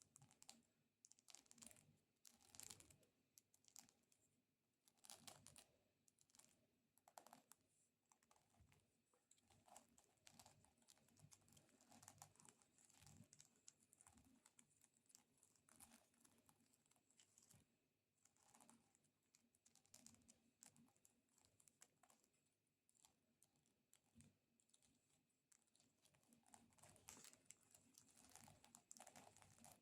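Long artificial fingernails tapping and scratching on a cork disc: quiet, quick, irregular clicks with short scrapes between them.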